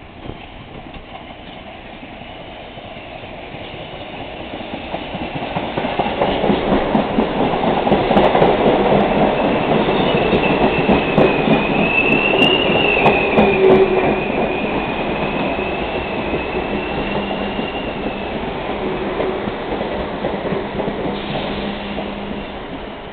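An R44 subway train pulls into the station. The rolling clatter of its wheels builds from about four seconds in, and a high wavering squeal sounds over it for several seconds in the middle. The noise then dies down as the train slows to a stop, leaving a low steady hum.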